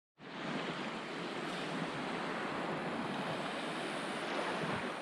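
Ocean surf washing steadily on a beach, with wind noise on the microphone; it cuts in suddenly just after the start.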